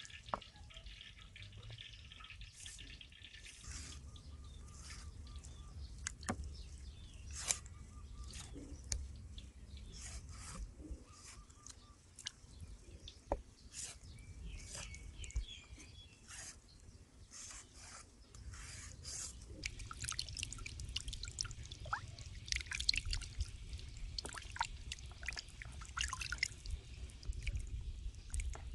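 Wet hand-handling of raw chicken drumsticks: skin and fat pulled and trimmed, with many small clicks and drips of water. Near the end the drumsticks are rubbed clean in a basin of water.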